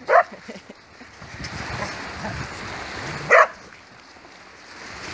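A dog barking twice in play, two short loud barks about three seconds apart, over a steady outdoor background.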